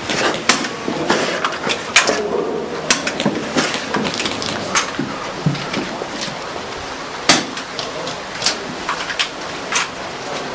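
Airsoft gunfire during a game: irregular single sharp cracks and knocks of shots and BBs striking, the loudest about two seconds in and about seven seconds in.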